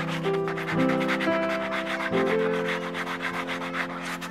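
Sandpaper rubbed by hand over a coconut-shell piece in quick, even back-and-forth strokes, several a second, smoothing the shell. Background music plays under it.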